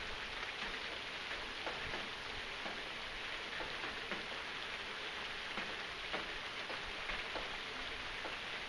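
Steady rain falling, an even hiss with many separate drops ticking at irregular moments.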